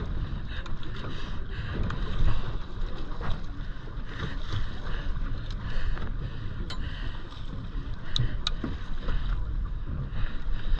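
Wind rumbling on the microphone over water sloshing against a small boat's hull, with a few sharp clicks in the second half.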